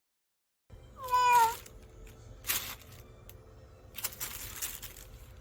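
A 12-year-old cat meows once, a single short, loud call about a second in that drops slightly in pitch at the end.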